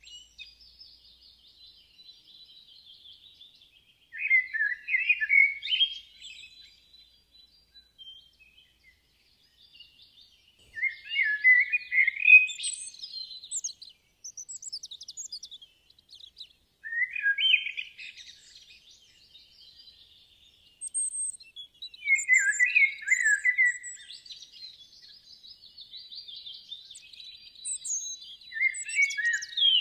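Songbirds singing: one bird repeats a short song phrase of about two seconds roughly every six seconds, over a faint continuous twittering from other birds.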